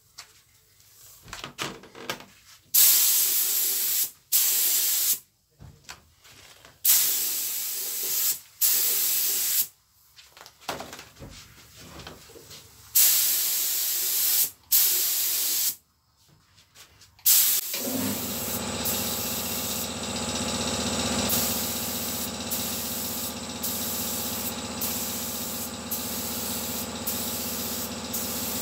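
Pneumatic paint spray gun hissing in bursts of one to two seconds with short pauses, as paint is sprayed on the inner part of a truck cab. About 18 seconds in a steady motor hum starts, and the spraying carries on over it in shorter, quickly repeated bursts.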